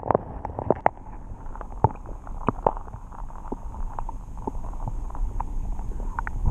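Water heard through a camera held under the surface: a muffled low rumble with scattered sharp clicks and pops.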